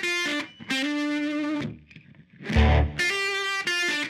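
Background music: a distorted electric guitar playing held notes that step in pitch, broken by short pauses, with a brief drop-out about halfway through.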